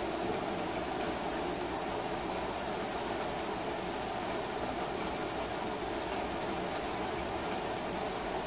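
Steady heavy rain, an even, unbroken hiss.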